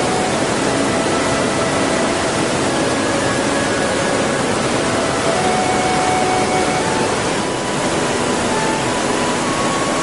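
Steady, loud rush of a waterfall: water falling and churning in an even roar with no let-up.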